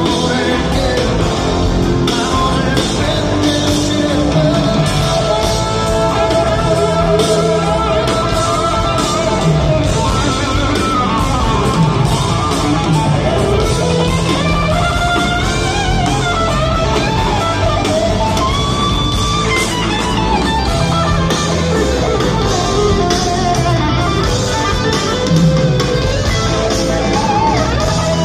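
Live rock band playing: an electric guitar lead with bending, sliding notes over the bass and drums, loud and without a break.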